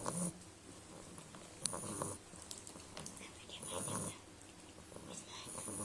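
Beagle snoring in its sleep, with a snoring breath about every two seconds.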